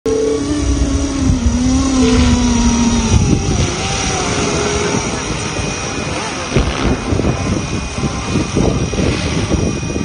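A scale RC Bell 212 model helicopter flying: its motor and rotor run loud and steady, with a hum for the first three seconds, then rougher, choppy rotor noise.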